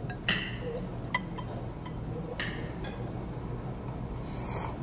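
A metal fork and knife clinking against ceramic plates, with three sharp clinks in the first two and a half seconds. A short slurp comes near the end as noodles are eaten, over a steady low room hum.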